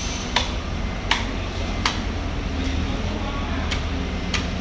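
Knife blades cutting into a bluefin tuna's head, giving five sharp clicks, three about ¾ s apart and then two more near the end, over a steady low hum.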